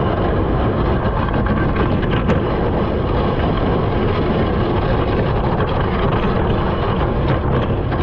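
Pickup truck's tire spinning and churning in deep snow with the engine running under load, a steady grinding rush: the truck is stuck and losing traction.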